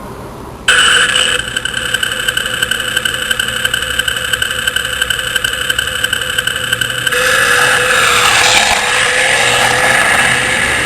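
Car engine sound starting abruptly about a second in and running steadily, then from about seven seconds accelerating, its pitch rising again and again as if shifting up through the gears.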